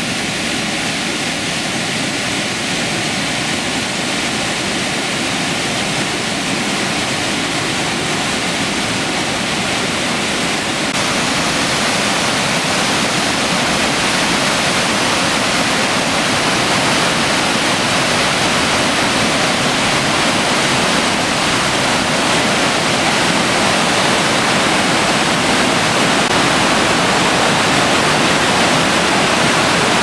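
Whitewater of a swollen torrent pounding over rocks below a waterfall: a loud, steady rush of churning water that grows a little louder about eleven seconds in.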